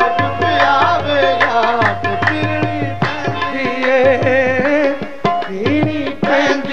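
Qawwali music: tabla drumming a busy beat under a melody line.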